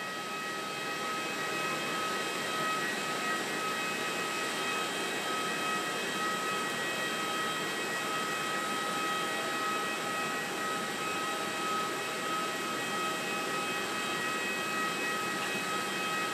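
Airbus A320's twin jet engines at takeoff thrust through the takeoff roll and lift-off: a steady rushing noise with several high, steady whining tones on top.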